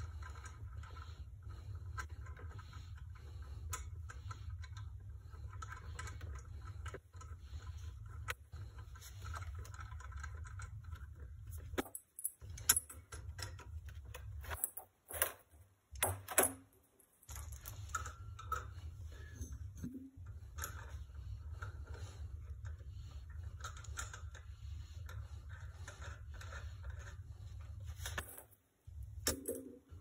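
Small metal clinks and rattles of torch hoses and brass fittings being handled and swapped, with a cluster of sharper clicks about halfway through, over a steady low hum.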